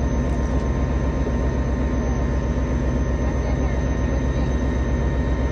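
Diesel locomotive engine idling steadily while the locomotive is turned on a turntable: a constant low rumble with a few steady higher tones over it.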